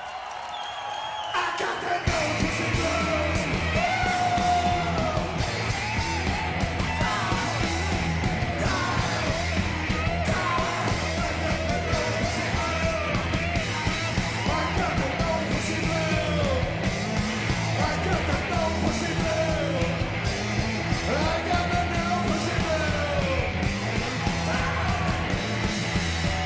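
Live rock band playing a loud, noisy rock section that comes in hard about two seconds in, with yelling and a high, wavering line over the band.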